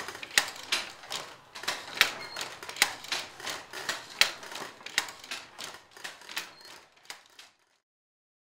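Rhythmic mechanical clacking: sharp clicks about two to three a second, growing fainter until they stop about seven and a half seconds in.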